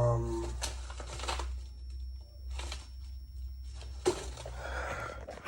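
3.5-inch floppy disk drive formatting a disk on a repaired Apple IIgs: separate mechanical clicks from the head stepping from track to track, one every second or so, and a softer rustle near the end. The clicks show the replaced IWM controller chip driving the drive properly.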